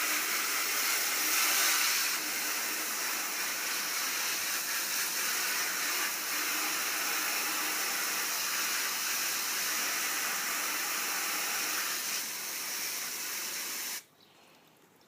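Garden hose spraying water steadily onto the plastic covers of a window air conditioner, a continuous hiss that cuts off suddenly near the end.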